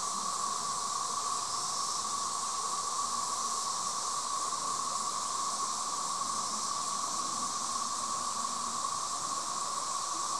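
Steady hiss of stream water heard from underwater, with a constant mid-pitched hum running through it.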